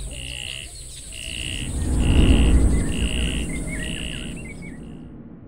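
Closing sound design: a short high beep repeating about once a second over a low rumbling swell that peaks about two seconds in, with a few bird-like chirps; it all fades out near the end.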